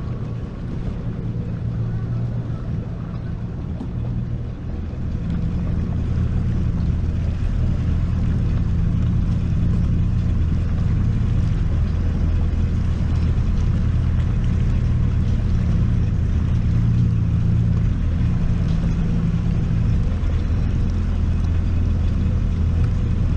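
Jet ski engine running steadily under way, a constant low drone that picks up and grows louder about five seconds in.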